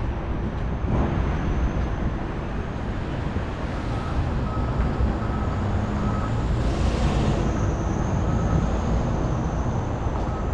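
City street traffic: a steady rumble of passing vehicles, with a brief hiss about seven seconds in.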